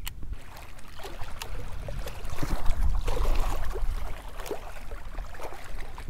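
Strong wind buffeting the microphone with a deep, constant rumble, over small waves washing and splashing against a rocky shoreline, with scattered light splashes; the wash swells about halfway through.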